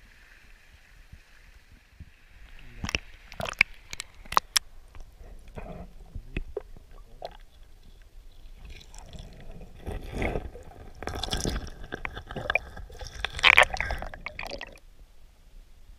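Steady rush of a shallow river, then sharp knocks and clicks from about three seconds in, followed by muffled gurgling and sloshing as a camera in its waterproof housing is held underwater. The loudest knocks come about four seconds in, and the noisiest gurgling comes near the end.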